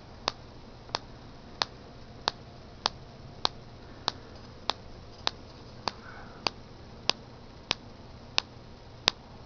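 High-voltage sparks from a 12-volt car ignition coil snapping across an air gap of about an inch, pulsed by a small capacitor spark gap fed from a 1.5-volt Joule thief circuit. Sharp snaps at an even rhythm of about three every two seconds, a rate set by the small primary spark gap.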